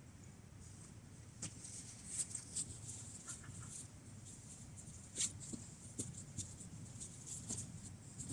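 Faint footsteps and rustling on a forest floor of needles and dry leaves: irregular light crunches and scuffs over a low steady background rumble.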